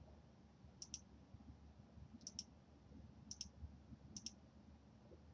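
Computer mouse button clicked four times, about a second apart, each click a faint, quick press-and-release double tick.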